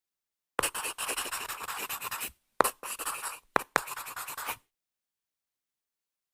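Writing sounds: a pen scratching across a surface in three runs of strokes, each starting with a tap, the first lasting under two seconds and the others about a second each.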